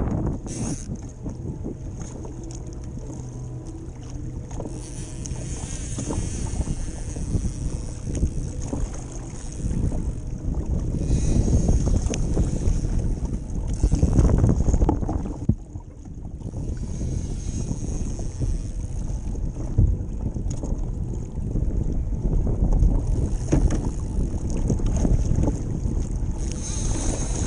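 Wind buffeting the microphone and choppy water slapping against a fishing kayak's hull, with a louder surge about halfway through.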